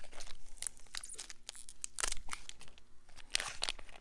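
Clear plastic packaging of a frozen steak being torn open and crinkled by hand: irregular sharp crackles and rips, the loudest about halfway through and near the end.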